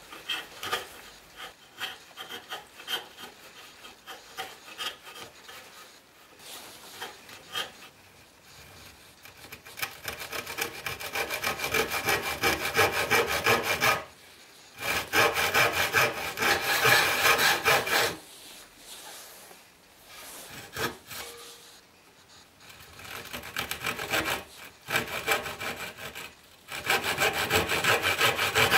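A chisel paring a wooden piece in a vise with light, repeated scraping strokes. About ten seconds in, a handsaw starts cutting the wood with quick, loud back-and-forth strokes, stopping briefly and starting again a few times.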